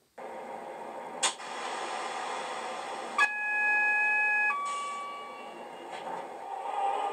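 Coastal DCC sound decoder in an Accurascale Class 37/4 model locomotive, playing a Class 37 diesel ticking over through the model's small speaker. A short hiss comes about a second in. About three seconds in there is a two-tone horn: a first note of over a second, then a shorter, higher second note that fades. The engine note builds near the end.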